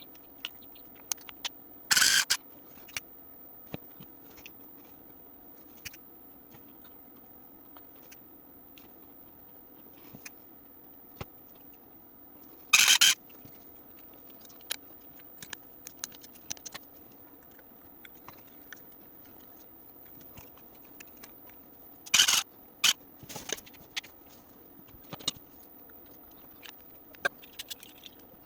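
Scattered small clicks and taps of hands working on small parts, broken by four short scraping rasps: one about two seconds in, one near the middle, and two close together about three quarters of the way through.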